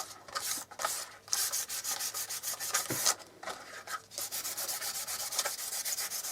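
Fine 1200-grit sandpaper rubbed over a wet-moulded leather pouch by hand, in quick back-and-forth strokes several times a second, with a couple of short pauses midway.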